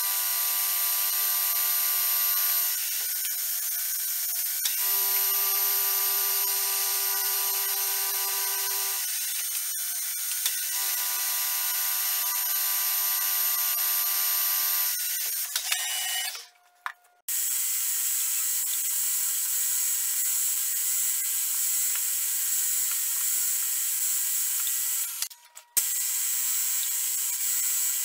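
Milling machine running, its end mill cutting a metal vise part: a steady hiss with a pitched tone that comes and goes three times, for a few seconds each. After a short break about sixteen seconds in, the machine runs on with a different steady tone as a drill bit cuts into a metal block.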